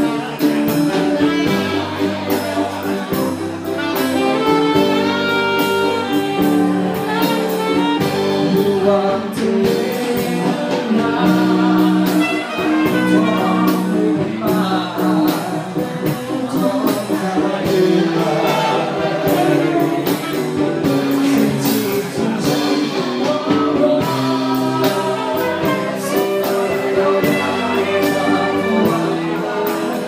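Live band playing a song: a singer with saxophone and electric guitar over drums keeping a steady beat.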